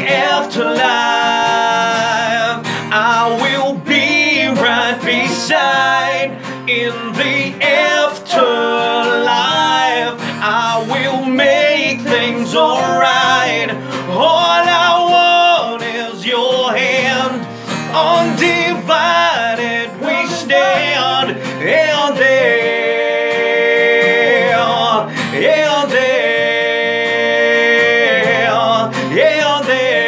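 Two men singing together over an acoustic guitar accompaniment, a live acoustic pop ballad; in the last several seconds they hold long, sustained notes.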